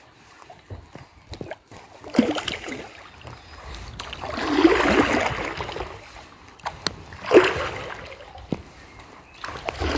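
Kayak paddle strokes: the blade dips and swishes through calm river water about every two to three seconds, with drips in between, echoing under a concrete bridge.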